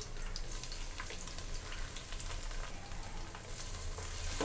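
Sliced onions and green chillies sizzling steadily in hot oil and ghee in an aluminium pot, with faint crackles, as chopped mint and coriander leaves are tipped in on top.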